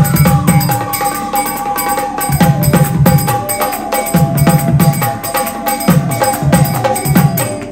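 A set of Assamese negera (nagara) kettle drums played fast with thin sticks: a rapid stream of sharp stick strokes over deep booming strikes whose pitch drops after each hit. The deep strikes come in clusters every second or two.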